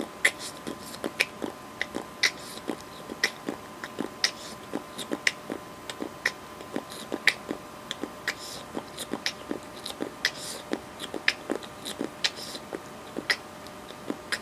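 A person making a rapid, irregular string of mouth clicks and smacks, several a second, some with a hissy edge. A faint steady electrical hum runs underneath.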